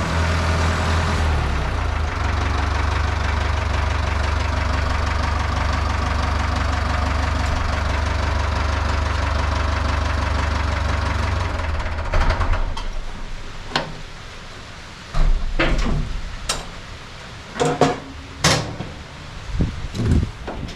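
Ford 5000 tractor engine running steadily, then shut off a little past halfway through. After it stops there are several separate knocks and clanks.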